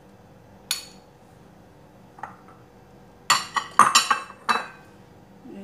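Hard kitchenware clinking and knocking: a single clink about a second in, then a quick cluster of sharp, ringing clinks between about three and four and a half seconds in.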